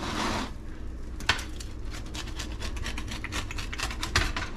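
Rolling pizza-cutter wheel being pushed through a crisp-crusted pizza and scraping on the board beneath. A short scrape comes first, then from about a second in a rapid run of crunching crackles as the wheel rolls across the crust.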